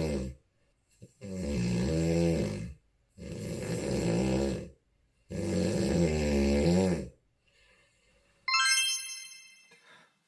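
A sleeping person snoring heavily without a CPAP machine: the end of one snore, then three loud snores about two seconds apart, each lasting about a second and a half. Near the end, a bright chime rings out suddenly and fades.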